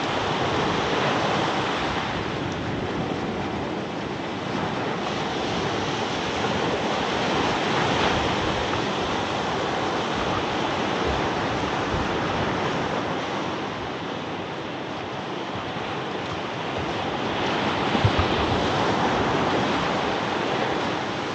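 Ocean surf breaking and washing up a sandy beach, swelling and easing every few seconds, with some wind on the microphone. A short thump near the end.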